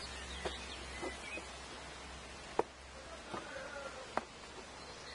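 Scattered light knocks and clicks, about six of them, the sharpest about two and a half seconds in. They sit over a steady faint outdoor hiss and low hum, with a few brief high chirps.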